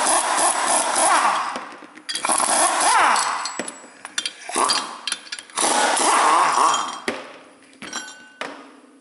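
Mac Tools air impact wrench hammering in four bursts on a hub puller's forcing screw, pressing the hub flange out of a front wheel bearing. A few metallic clinks with a short ring follow near the end as parts and the wrench are set down on a metal tray.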